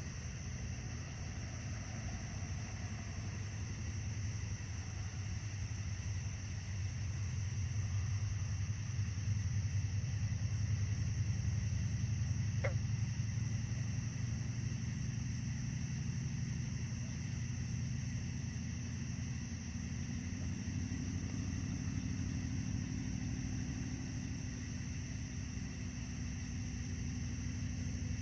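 Distant road traffic, a steady low roar that swells for several seconds in the middle. A single brief chirp sounds about halfway through.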